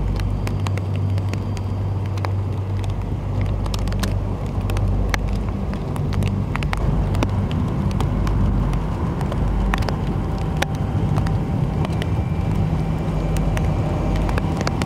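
Gusty thunderstorm wind rumbling across the microphone, with scattered raindrops ticking sharply on it.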